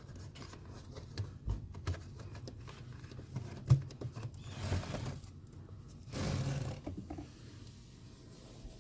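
Handling noise from a plastic cabin air filter housing: light clicks and a sharp knock as the filter door is lifted, then two rustling scrapes as the old pleated cabin air filter slides out of the housing.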